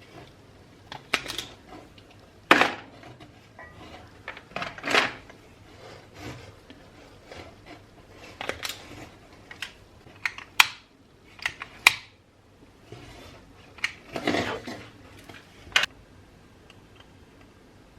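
Irregular clinks, knocks and short rattles of small metal parts and tools being handled while an old table fan is worked on, about fifteen sharp knocks spread unevenly with pauses between. No motor is running.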